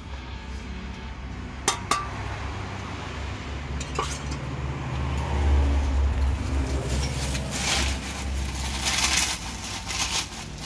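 A few sharp clinks of china dishes being handled and set down on a tiled counter in the first half, over a steady low rumble of road traffic that grows louder with rushing noise in the second half.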